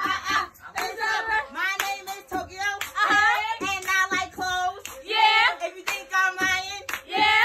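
Hands clapping along with singing voices.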